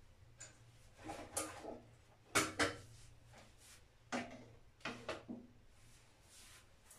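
Knocks and rattles of a wire basket of plastic toiletry bottles being handled and set down on a small shelf. A cluster of knocks comes about a second in, the two loudest sharp knocks about two and a half seconds in, then a few more around four to five seconds in.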